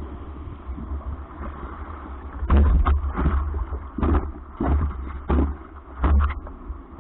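Surf whitewater churning and slapping against a stand-up paddleboard, heard through a camera mounted on the board: a steady low rumble of wind and water on the microphone, with several sharper splashes from about a third of the way in.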